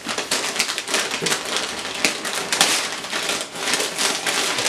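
Paper wrapping being handled and torn open, a continuous crinkling and rustling made of many quick crackles.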